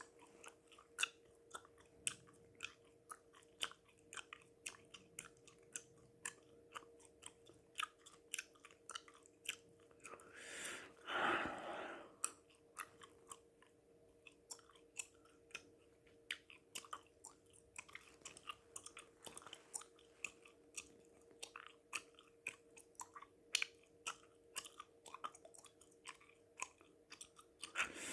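Close-miked gum chewing: wet mouth clicks and smacks, about two to three a second, over a faint steady hum. About ten seconds in, a heavy breath swells and fades over a couple of seconds.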